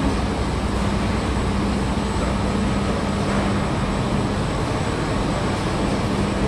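Steady noise of factory machinery and ventilation, with a constant low hum and no distinct events.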